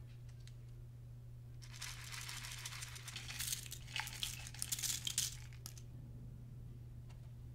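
Star-shaped plastic sequin confetti poured from a small plastic cup into a glass bowl of clear slime: a dry crinkling patter of many small clicks, starting about two seconds in and stopping just before six.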